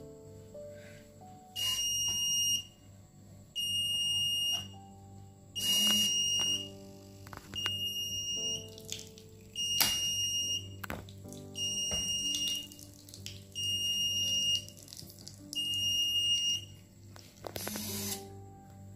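Electronic buzzer on a robot-kit controller beeping: nine even beeps of one steady high tone, each about a second long and about two seconds apart. It is the alarm that low plant humidity has been detected, calling for watering.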